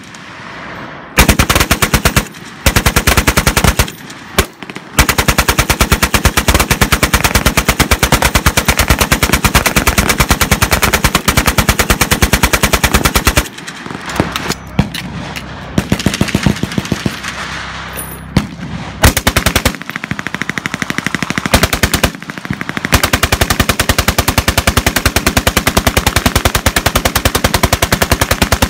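Browning 1919A4 belt-fed machine gun firing full-auto: a few short bursts, then a long burst of several seconds. After a lull of fainter, scattered gunfire, it fires a short burst and then another long one.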